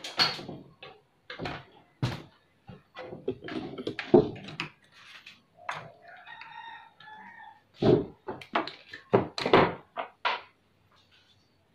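Knocks, thuds and clatter of a CRT television being handled and turned over onto its screen on a wooden workbench. About halfway through, a drawn-out animal call is heard behind the handling.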